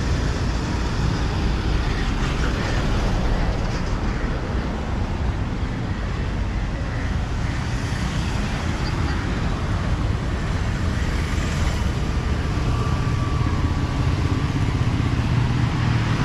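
Steady city road traffic noise: cars and motorcycles running past, a continuous low rumble with no single event standing out.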